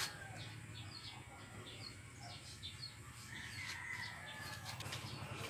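Corded electric hair clippers buzzing steadily while cutting hair, with birds chirping in short high calls about twice a second.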